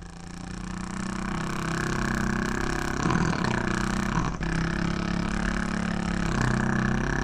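Small outboard motor on a boat running steadily with a droning hum, fading in over the first couple of seconds, its pitch wavering slightly a few times.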